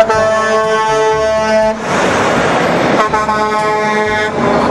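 Semi-truck air horn sounding two long, steady blasts, the second starting about three seconds in, over the noise of trucks driving past.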